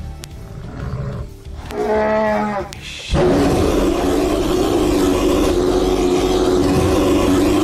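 A large animal roaring: a short pitched call about two seconds in, then a long, loud, rough roar held steadily for several seconds.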